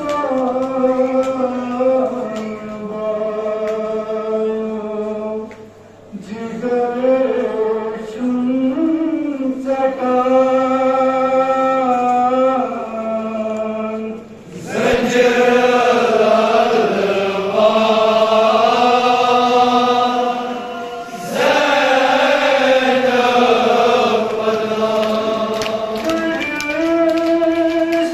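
A man reciting a Kashmiri noha, a Shia lament, through a microphone in long, held sung lines with brief pauses between phrases. The singing grows louder and fuller about halfway through.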